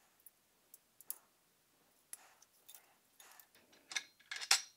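Faint, scattered clicks and taps of a small screwdriver and screws as the screws holding the metal fan grate of a laser module are taken out, with a few louder clicks near the end.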